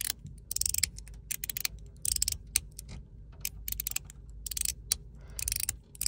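42cosmo Lightning fidget slider clicking as its metal block is slid up and down, the spring-loaded balls inside snapping over a sawtooth ridge. The clicks come in quick, irregular runs.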